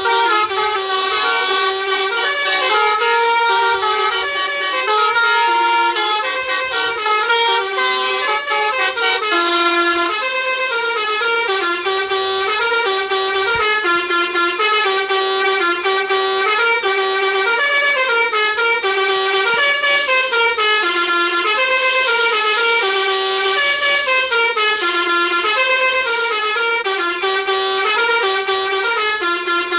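Basuri 'telolet' musical bus horn playing a tune of steady notes that step up and down, continuously.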